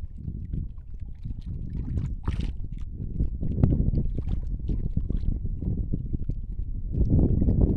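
Wind buffeting the microphone: an uneven low rumble that swells louder near the end, with a few faint clicks.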